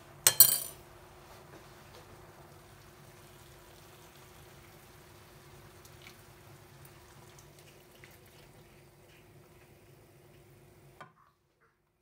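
A metal spoon clinks and scrapes against a glass jar of tomato paste in a short, loud clatter about half a second in. A faint steady kitchen hum follows and cuts out abruptly near the end.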